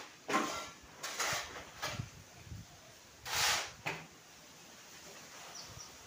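Shovels scraping across a concrete floor and scooping the sand-and-cement mix for concrete blocks: a few separate scrapes, each under half a second.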